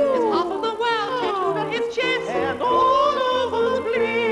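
Piano accompaniment with two high voices singing in an old-fashioned operatic style. The voices swoop down in long slides in the first second or so, then settle on a long held note.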